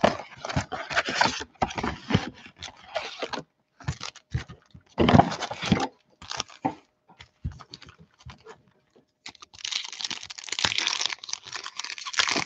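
Foil Panini Prizm trading-card packs and their box packaging crinkling, crackling and being torn open by hand: a run of short crinkles and rustles with brief pauses, with a longer, denser crinkling near the end.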